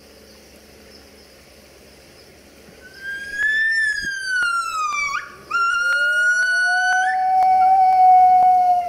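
A pair of gibbons calling: about three seconds in, a loud whistle-like hoot rises and then glides down before breaking off. It is followed by two held notes sounding together, a high one and a lower one that rises and then holds, until both stop near the end.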